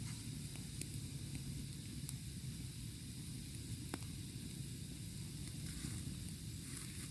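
Food frying, a steady sizzle with a few faint ticks.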